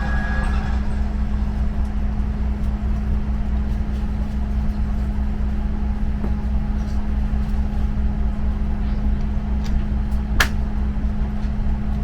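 Steady low cabin hum of a Boeing 787-9 airliner waiting at the gate, from its air-conditioning and ground systems, with a steady droning tone. A single sharp click about ten seconds in.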